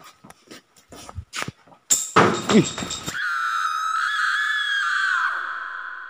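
Edited horror title sound effect: a few faint clicks, then about two seconds in a sudden loud hit with a falling pitch sweep, followed by a held, slightly wavering high tone that fades out near the end.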